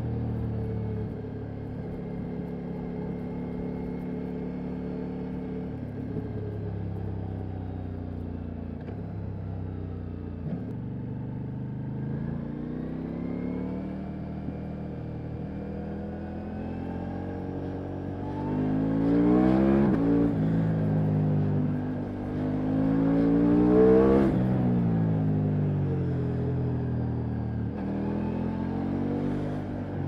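Ducati Multistrada V4 Rally's V4 engine heard from the rider's seat while riding, running steadily at first. Past the middle it twice climbs in pitch and grows louder, each time falling away again afterwards.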